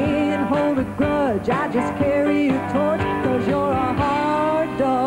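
A woman singing a country song live with a band backing her, her melody bending between notes and settling into a long held note near the end.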